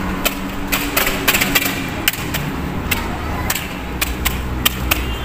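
City street traffic rumble, with frequent sharp, irregular clicks and taps on top.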